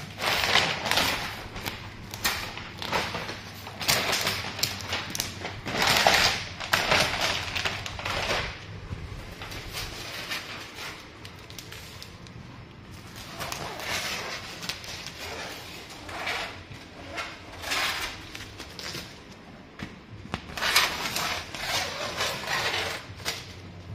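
Excess marine-grade cast vinyl wrap being peeled by hand off a boat hull along a scored cut line, coming away in irregular noisy bursts with quieter pauses between.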